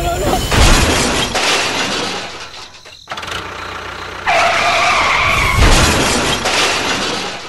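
Loud crash-and-skid noise as a toy train collides with a toy trailer and derails, in two noisy stretches with a brief gap near the middle. A held tone of two pitches sounds over it about four seconds in for a second and a half.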